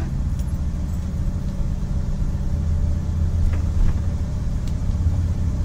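Motorhome driving along, heard from inside the cab: a steady low rumble of engine and road noise.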